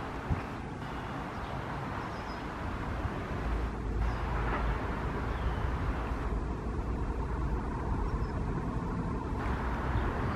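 Commuter train pulling out of the station: a steady low rumble of the train's engine and wheels. The rumble grows a little stronger about three and a half seconds in.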